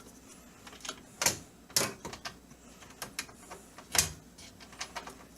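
Sharp metal clicks and taps of a screwdriver working a stubborn motherboard screw loose in a PC case. The loudest come about a second in, again shortly after, and near four seconds, with fainter ticks between.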